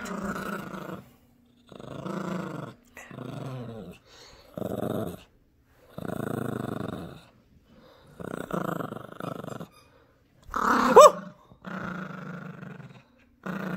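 Yorkshire terrier growling in short bouts, one after another with brief pauses, while tugging on a plush toy. A louder, sharper sound with a pitched rise and fall comes near the end.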